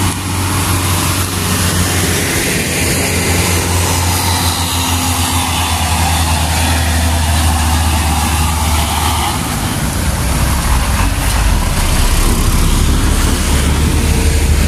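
Diesel engines of a Hino Dutro light dump truck and then a larger Hino tandem-axle dump truck, passing close by one after the other. A steady deep engine drone with road noise, whose note drops lower about ten seconds in.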